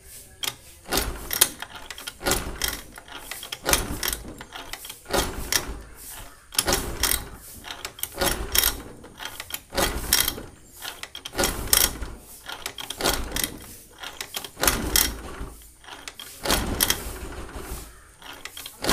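Scooter being kick-started over and over: about a dozen kicks, one every second and a half or so, each a short burst of the kick-start gear and engine turning over without settling into a run. The choke is off and the scooter has stood unused for two to three weeks, which makes it hard to start.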